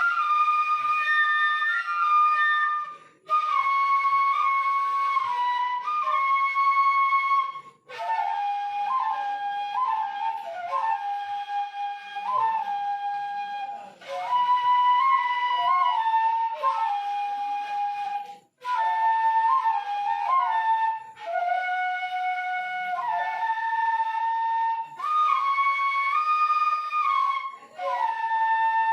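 Seruling emas, traditional bamboo flutes, playing a stepwise melody in phrases with brief breaks for breath.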